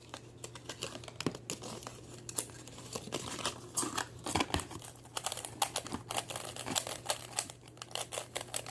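Plastic packaging crinkling and rustling with quick, irregular clicks as a Shengshou 3x3 puzzle cube is unpacked and handled, over a faint steady hum.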